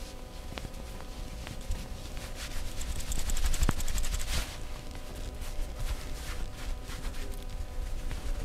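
Massage hands striking rapidly on the body, a dense rattle of quick taps and slaps that is thickest and loudest about three to four and a half seconds in.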